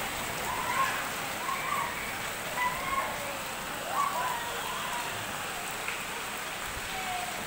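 Steady hiss of water from the heavy rain and flood. Over it, faint voices of people call out during the first four seconds or so.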